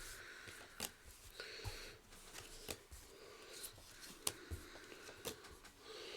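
Trading cards being handled and laid on a table: faint slides of card stock and light taps, about one a second.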